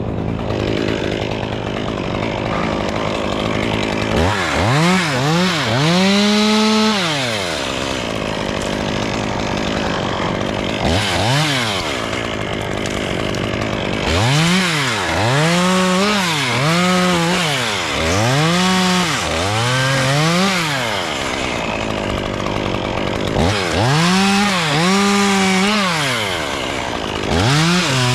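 Two-stroke chainsaw ticking over at idle, then revved in a series of bursts that rise and fall in pitch. Several bursts are held near full throttle for a second or two, cutting into spruce wood.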